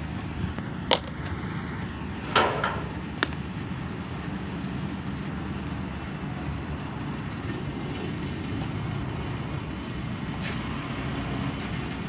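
Tracked excavator's diesel engine running steadily, with a few sharp knocks in the first few seconds.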